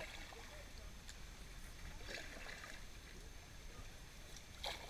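Faint river water splashing and trickling around a kayak, with soft splashes about two seconds in and again near the end.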